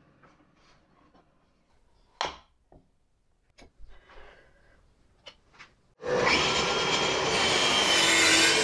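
A few light clicks and knocks of wood and a miter gauge being handled, then about six seconds in an angle grinder fitted with a circular saw blade starts and runs loud and steady as it is pushed on its sliding carriage through a wooden strip.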